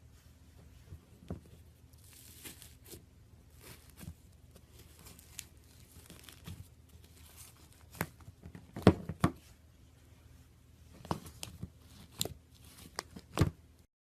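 Iceberg slime being worked by hand, its dried, hardened top crust crackling and crunching in irregular pops, with louder clusters past the middle and again near the end.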